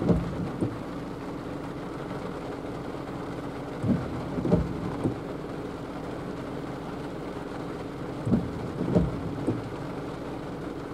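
Steady rain falling on a car's roof and windows, heard from inside the car. Heavier drops knock a few times about four seconds in and again after about eight seconds.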